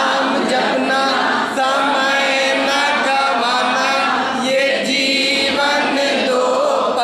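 A man singing a Hindi song unaccompanied, drawing out long held notes.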